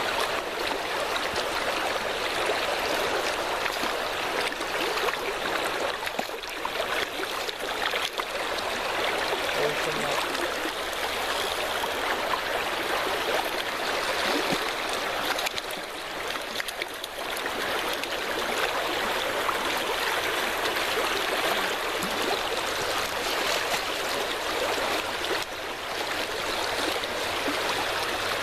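Creek water running steadily, a constant even rush of flowing water.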